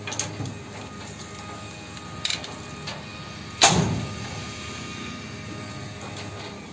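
A belt-fed 7.62 mm light machine gun is being loaded. The ammunition belt and gun parts give small metallic clicks, then the feed cover is snapped shut with one loud metal clack a little past halfway.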